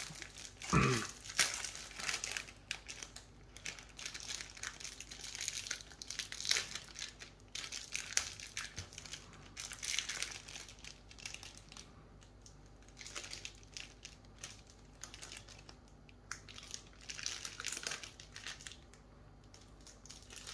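Plastic food packaging crinkling and rustling in irregular bursts as it is unwrapped and handled.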